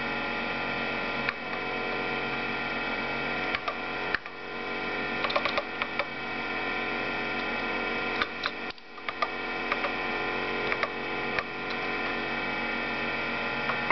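Keys clicking one at a time on a Bondwell-16 computer's keyboard as a short line of text is typed, over the computer's steady electrical hum.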